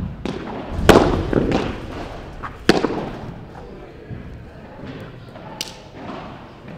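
Padel rally: a padel ball knocked back and forth by rackets and rebounding off the court's walls, a handful of sharp knocks that ring in the hall, the loudest about a second in and another just before three seconds.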